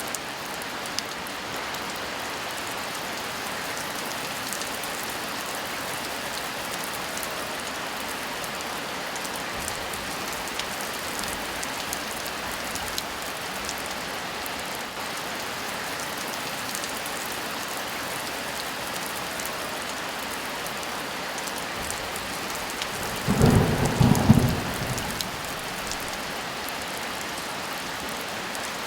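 Steady heavy rain falling, with a single short rumble of thunder lasting about two seconds, three-quarters of the way through.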